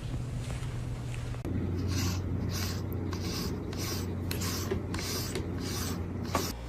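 Rhythmic scratching strokes, about two a second.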